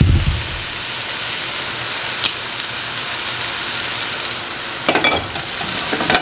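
Food frying in a hot pan: a steady sizzle, with a low thump right at the start and a few sharp clicks of utensils against the pan about two seconds in and again near the end.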